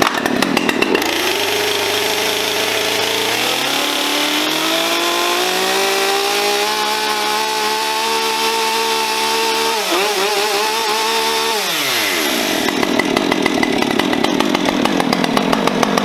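Brand-new Husqvarna 550 XP Mark II two-stroke chainsaw on its first run: it revs up about a second in, its pitch climbing slowly to a high steady pitch. It wavers briefly, then drops back to idle about twelve seconds in.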